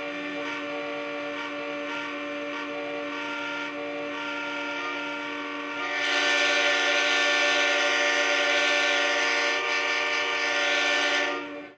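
Emergency alert attention tone: a loud, steady, horn-like chord held without a break. It gets louder and brighter about halfway through and cuts off just before the end.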